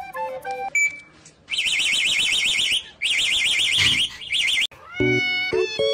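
A car-alarm siren sound: a fast warble in two bursts of about a second and a half each, after a short high beep. It comes between a flute-like tune at the start and other music near the end.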